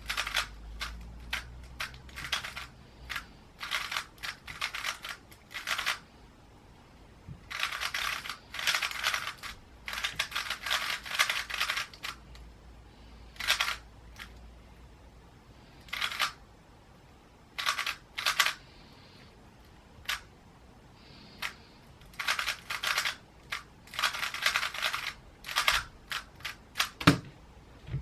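A 3x3 Rubik's cube being turned by hand: bursts of rapid plastic clicking from its layers, separated by short pauses, with a sharp knock near the end.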